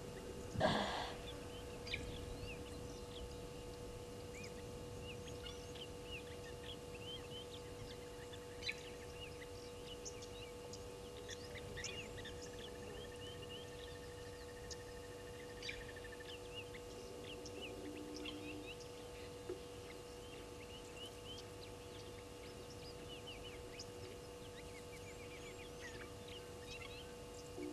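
Wild birds chirping and calling around a waterhole: many short, scattered chirps throughout, with one held whistling note about halfway through, over a steady low hum. A brief louder sound stands out about a second in.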